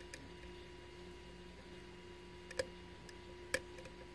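Lock pick clicking against the pins inside a Sargent lock cylinder during picking: a few small, sharp metallic clicks, two louder ones in the second half, over a faint steady hum.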